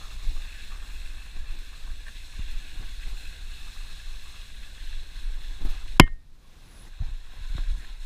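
Suzuki Jimny driving slowly over a rough dirt track, heard from a camera mounted outside the body: a low rumble with wind noise on the microphone and scattered knocks from the bumpy ground. About six seconds in there is one sharp, loud knock.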